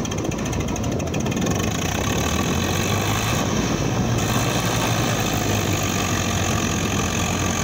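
Diesel tractor engines running steadily, one tractor moving slowly through deep mud.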